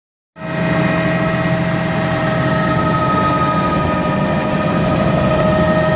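Helicopter turbine and rotors running steadily in flight, heard from aboard: a dense, loud drone with a steady high whine and a fast, even rotor beat. It starts abruptly just after the opening.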